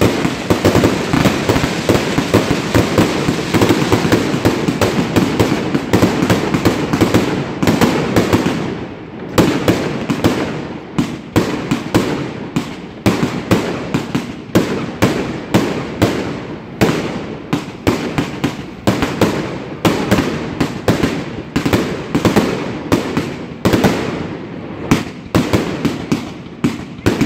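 Triplex TXB869 600-shot, 1.2-inch consumer fireworks cake firing. For the first eight seconds or so the shots come in a dense, near-continuous barrage. After that they come as separate bangs, several a second.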